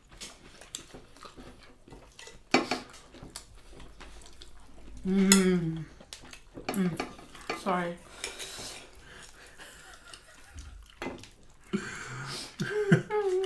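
Knife and fork clinking and scraping on ceramic dinner plates, in scattered sharp clicks.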